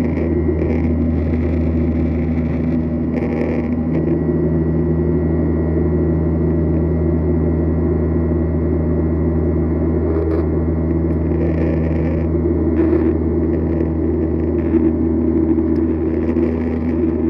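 Steady drone of an airliner's jet engines and rushing air heard inside the passenger cabin during the climb after takeoff, a deep rumble with several steady hum tones above it.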